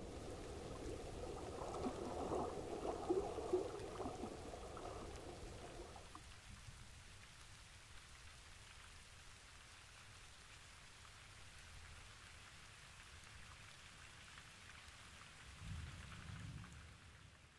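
Faint rain-like patter of water, fuller for the first few seconds and then thinning to a soft hiss. A brief low rumble comes near the end before the sound fades out.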